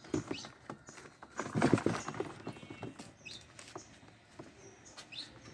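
Pigeons being handled at wooden, mesh-fronted cages: scrabbling, fluttering and knocks against the wood, loudest about a second and a half in. A few short, high rising chirps from birds come through now and then.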